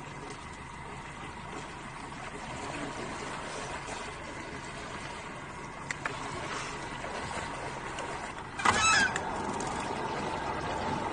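A bird's loud pitched call, once, about three-quarters of the way through, lasting about half a second over a steady background hiss.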